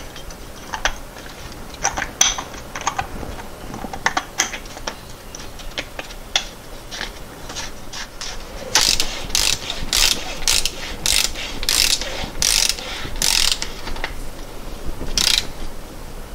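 Hand ratchet wrench clicking in a run of about nine strokes, roughly two a second, running down a fastener on a VW 020 transmission case. Lighter clicks and knocks of tools and parts being handled come before it.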